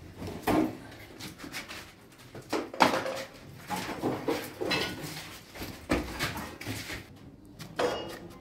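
Irregular knocks, clatter and scraping of a large wooden panel being tilted, lifted and carried in a small room.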